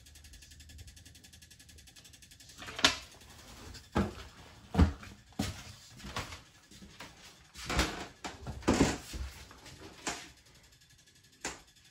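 Irregular knocks and thumps of footsteps on bare plywood cabin floors and of wooden cabin doors being handled inside a Lagoon 450 catamaran's hull, starting about three seconds in.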